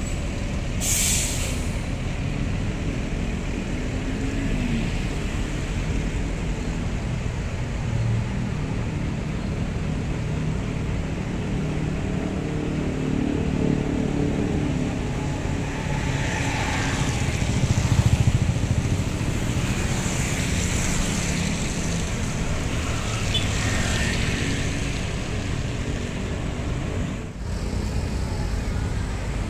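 Diesel engine of a Mercedes-Benz OH 1626 coach running as the bus moves off in slow traffic, its note rising and falling, with a short hiss of air brakes about a second in and tyre noise from other vehicles on the wet road.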